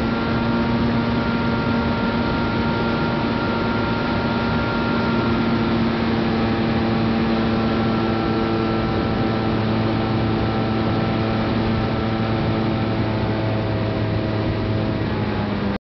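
Jet boat's engine running at a steady cruise, a constant droning note over a rushing noise, its pitch shifting slightly about halfway through.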